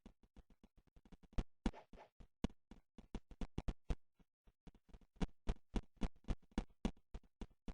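A rapid, somewhat uneven run of sharp clicks, about five a second, louder from early in the second second onward, with a short break about four seconds in.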